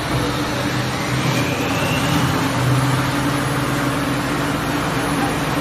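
Electric coconut powder grinder running: a steady motor hum with an even whirring noise over it.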